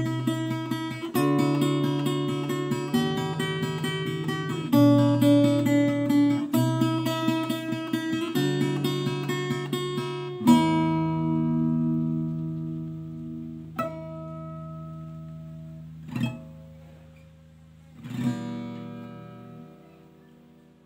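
Acoustic guitar played fingerstyle: a rapid picked arpeggio pattern over C, D and E minor chords. About halfway through it stops on a final chord that is left ringing and slowly fades, broken by three short sharp accents.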